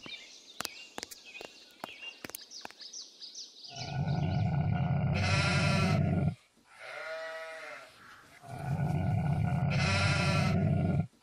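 Farm livestock bleating: two long, loud bleats, the first about four seconds in and the second about eight and a half seconds in, with a shorter, quieter call between them. Before them there are light scattered clicks and bird chirps.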